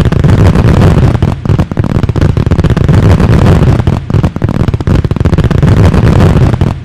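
Fireworks: a dense, continuous barrage of rapid bangs and crackling, loud throughout.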